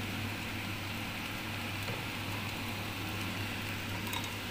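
Pancit canton noodles and vegetables cooking in a wok: a steady soft sizzle, over a constant low hum.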